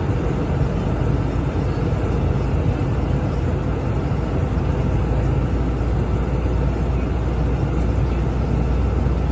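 Steady in-flight cockpit drone of an aircraft: engine and airflow noise with a deep rumble and a faint steady hum.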